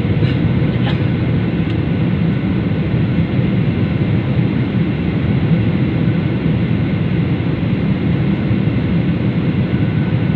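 Steady cabin noise of a Boeing 737 jet airliner in descent: the even rush of its engines and the airflow over the fuselage, heard from inside the cabin.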